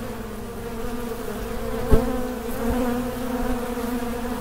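Honeybees buzzing around an opened hive and a bee-covered frame: a steady hum at two drone pitches, one low and one about an octave higher. A single sharp thump about two seconds in is the loudest sound.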